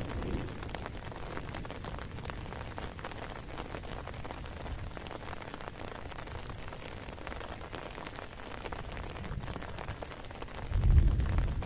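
Heavy rain falling steadily, many drops pattering. Near the end a loud low rumble swells up.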